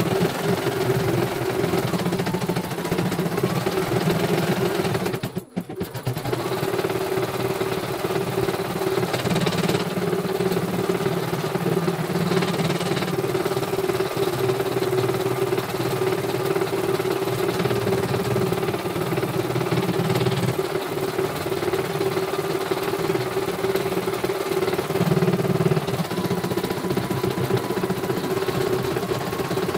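CNY portable computerised embroidery machine stitching a test design: the needle rapidly punching while the hoop is stepped along, a steady fast mechanical chatter. It briefly cuts out about five seconds in, then runs on.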